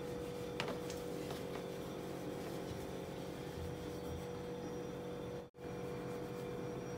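Quiet room tone: a steady electrical hum, with a few faint clicks in the first second and a half. The sound cuts out for an instant about five and a half seconds in.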